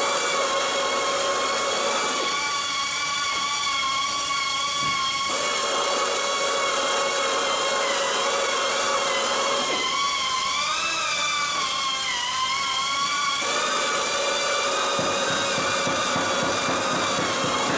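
Pneumatic drill drilling out the heads of plug rivets in an aircraft wing spar to remove them. It gives a steady high whine whose tone shifts every few seconds, and its pitch wavers and dips under load a little past the middle.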